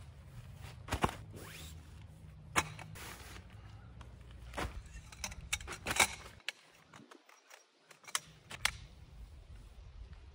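Tent gear being unpacked onto a plastic tarp: scattered knocks and clacks as tent poles and tools are handled and set down, with rustling of the tarp and tent bag and steps in dry leaves.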